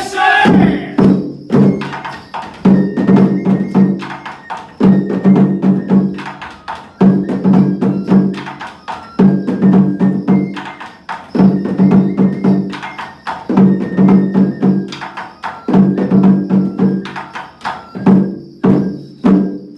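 Traditional Japanese festival percussion accompanying a kasa dance: drum beats in repeating phrases about every two seconds, with sharp wood-block-like clacks throughout.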